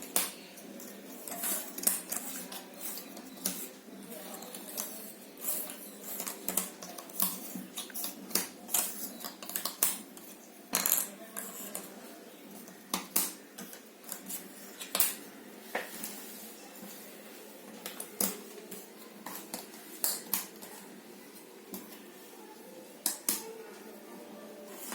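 Jigsaw puzzle pieces being handled and fitted together, making irregular light clicks and taps, several a second, some sharper than others.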